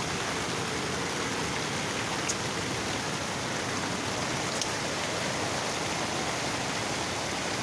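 Steady rush of water from a waterfall, an even hiss with no let-up.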